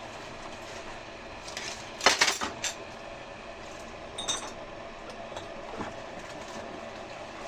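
Kitchenware clattering: a quick cluster of clinks about two seconds in, a single ringing clink a couple of seconds later and a faint tick near the end, over a steady low background hum.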